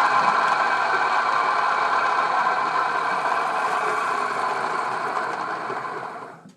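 Electric drive motor of a small lathe running on its own, making a really loud, awful noise: the noise comes from the motor, not the lathe. It fades and dies away just before the end as the motor runs down.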